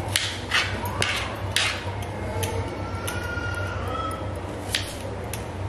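Kitchen knife slicing small red onions on a plastic cutting board: a series of sharp taps of the blade through the onion onto the board, about eight at uneven spacing, over a steady low hum.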